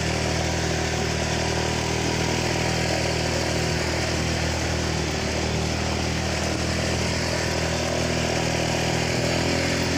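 Motorcycle engine running at a steady speed while riding, with a constant hum and wind and road noise.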